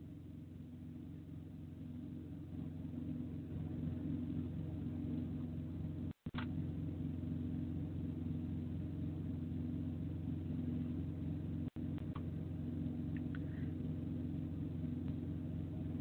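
Truck engine running steadily with a low rumble that grows louder over the first few seconds; the sound cuts out briefly twice.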